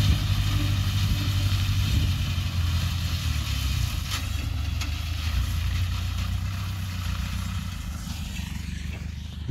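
John Deere 2250 diesel tractor running steadily under load as it mows alfalfa with a rear-mounted mower. It grows gradually fainter as it drives away.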